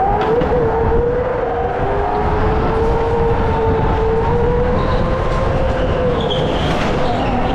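Indoor racing go-kart running at speed: a steady motor whine that rises and dips slightly in pitch, over a low rumble.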